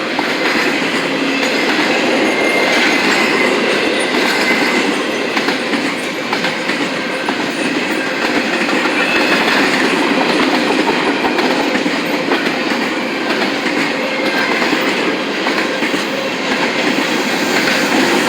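A train rolling steadily past, its cars' wheels clicking over the rail joints in a continuous rumble, with a faint high squeal of wheels at times.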